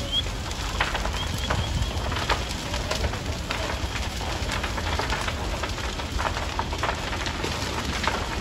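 Large wooden building fire crackling, with sharp pops scattered all through over a steady rushing noise and a deep rumble. A short run of rapid high chirps comes about a second in.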